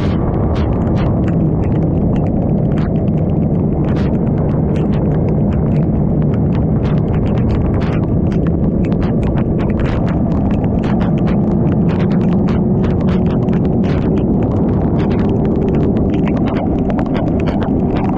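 Wind and road noise from a superbike at highway speed in heavy rain, with the engine's steady drone underneath. Irregular sharp ticks of raindrops striking the camera run through it.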